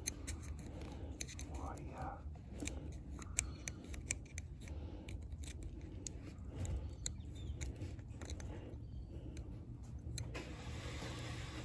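Small metallic clicks and scrapes at irregular intervals as a screwdriver tip and fingers work a coil spring into place in a Lokka automatic locker inside a differential carrier.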